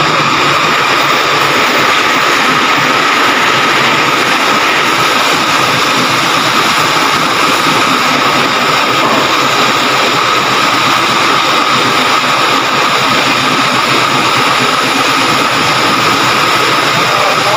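Steady, loud machinery drone with a constant high whine.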